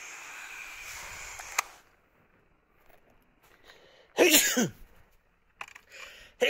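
Garden hose spray nozzle hissing, which stops with a click a little under two seconds in. About four seconds in comes a loud, short voice-like sound that falls steeply in pitch, and a second one begins at the very end.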